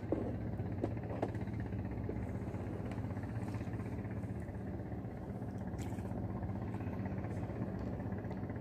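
Steady low hum of a boat engine running, with a couple of faint clicks about a second in.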